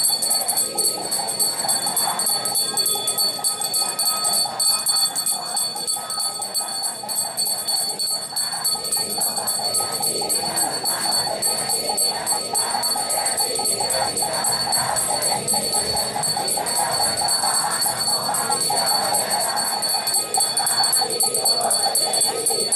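A Buddhist congregation chanting together, over a steady, high jingling ring.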